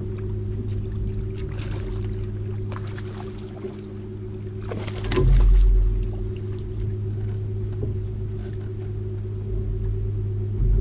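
Boat motor running steadily with an even hum while trolling, with a brief louder rush about five seconds in.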